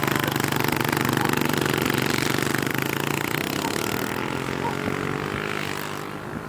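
Honda CRF110F pit bikes' small air-cooled four-stroke single-cylinder engines running as the bikes ride off down a dirt track, fading steadily into the distance.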